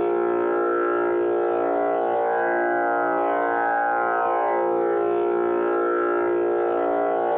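Tanpura drone tuned to A#: its strings sound in a continuous cycle, the overlapping notes swelling and fading in a slow repeating pattern over a steady pitched hum.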